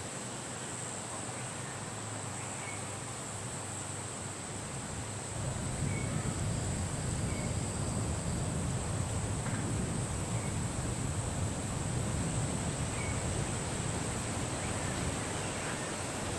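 Outdoor ambience: a steady high-pitched insect drone with a few faint short chirps scattered through it. A low rumble of wind on the microphone comes in about five seconds in.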